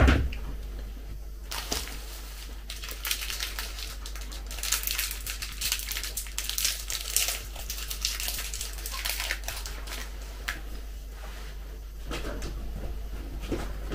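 A mug set down on the table with a knock, then a sweet's crinkly foil wrapper being unwrapped by hand, crackling for several seconds. Near the end, sipping from the mug.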